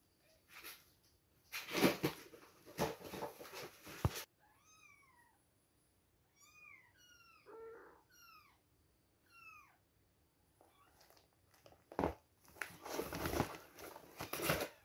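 Young kittens mewing: about six short, high-pitched mews, each falling in pitch, with one lower call among them. Bursts of rustling and handling noise come before and after the mews.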